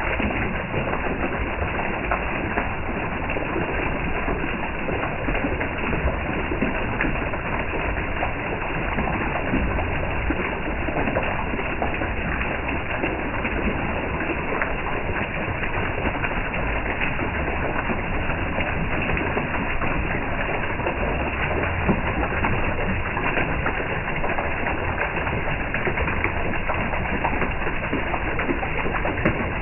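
Steady running water with dripping: an even rushing hiss dotted with many small splashes and drips, unchanging throughout.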